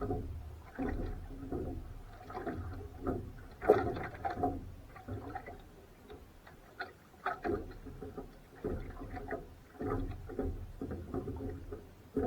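Rowing boat on rough water: irregular knocks and splashes of the oars and water against the boat, the sharpest knock about four seconds in, over a low rumble of wind on the microphone.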